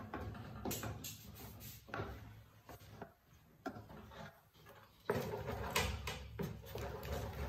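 Wooden spoon stirring and scraping thick mash in a large aluminium pot, with repeated knocks of the spoon against the pot. It goes quieter for a couple of seconds midway, then picks up again.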